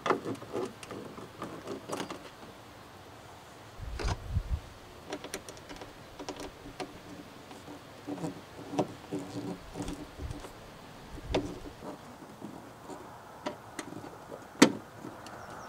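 Small screws with washers being driven by hand with a screwdriver through a plastic hood bug deflector into plastic push-pin clips: scattered light clicks and rattles. A low thump comes about four seconds in and a sharp, louder click near the end.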